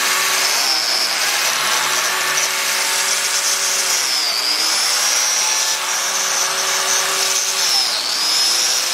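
Biscuit joiner's motor running at speed with a steady high whine. Its pitch dips and recovers twice, about four seconds in and near the end, as the blade plunges into the board edge under load to cut biscuit slots.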